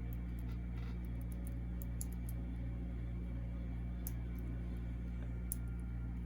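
Faint, scattered clicks of a Master Lock 643D combination lock's number wheels being turned by hand while feeling for the true gate, over a steady low hum.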